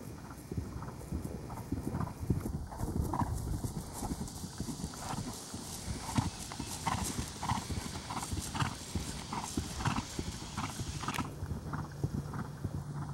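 Hoofbeats of a Trakehner gelding cantering on grass under a rider, a rhythmic drumming of hooves on turf.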